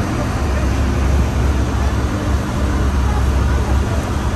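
River tour boat's engine running, a steady low drone with a constant hum.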